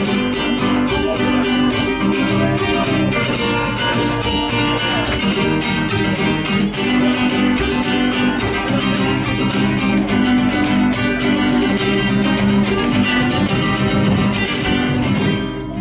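Instrumental interlude of an Argentine folk song: acoustic guitars strumming in a steady rhythm, without singing.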